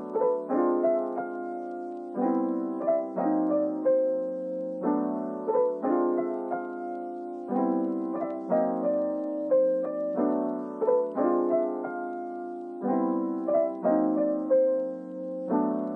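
Gentle piano background music: held chords in a slow, even pattern with a simple melody on top.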